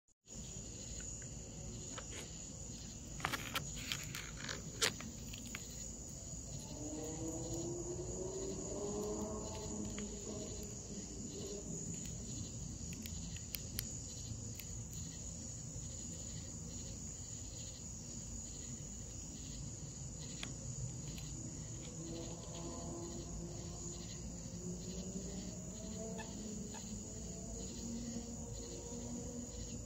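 Night insects trilling steadily in one high, unbroken tone. A few sharp clicks come about three to five seconds in, and faint low tones slowly glide upward underneath twice.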